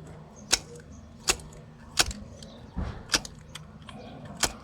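About six sharp plastic clicks and taps spread over four seconds, from a zip tie being worked around a car's ignition coil in the engine bay.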